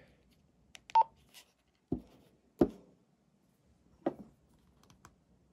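A walkie-talkie gives a short electronic beep about a second in. Sharp clicks and knocks follow as the handheld radios are handled and switched, twice close together and once more near the end.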